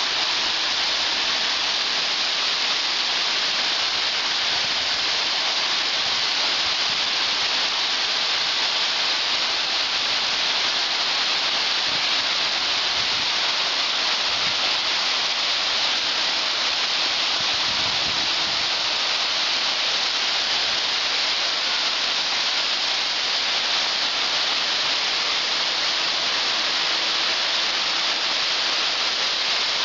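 Waterfall cascading down a stepped rock face in full monsoon flow: a steady, loud rush of falling water.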